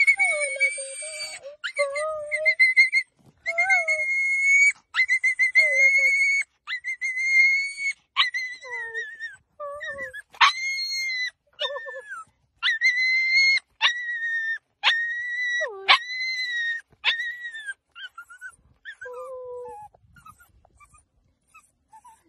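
Small, frightened dog crying out in long, high-pitched yelps, roughly one a second, with shorter, lower whimpers between them; the cries thin out and grow fainter near the end.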